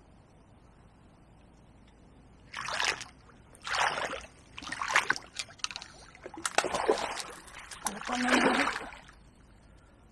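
Water splashing in about five bursts over six seconds: a hooked tench thrashing at the surface near the bank, trying to dive for the marginal snags.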